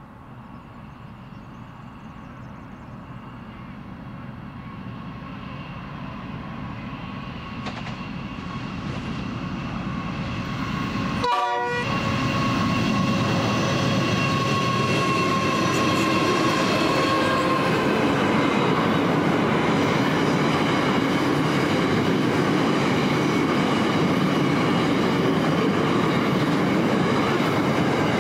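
Pacific National NR-class GE diesel-electric locomotives hauling a container freight train, growing steadily louder as they approach, with a short horn blast about eleven seconds in. The locomotives pass, then the container wagons roll by with steady wheel-on-rail noise.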